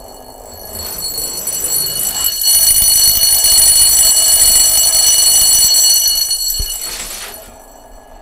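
Bell noisemaker ringing continuously at the bottom of a metal tube. It grows much louder over the first few seconds as the carbon-fibre felt (Teknofibra) sound-deadening lining is pulled out, leaving the bare metal tube, and drops back quieter about seven seconds in as the lining goes back in.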